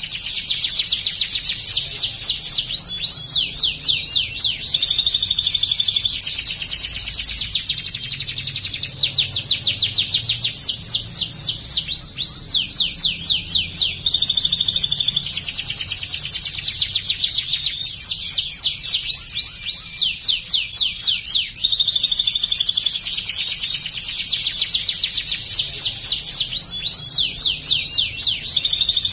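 White domestic canary singing a loud, continuous song of high rolling trills and fast runs of sweeping notes, phrases repeating one after another. The song is built on imitated ciblek (bar-winged prinia) material that the canary has learned.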